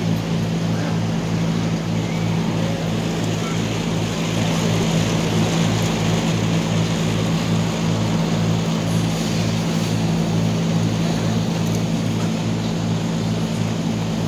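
Steady low hum and buzz from large PA loudspeakers, with a throb pulsing about two or three times a second over a background hiss.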